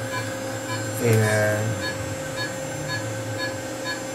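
Steady electrical hum of equipment with a faint pulsing about four times a second, and a man's voice saying one word about a second in.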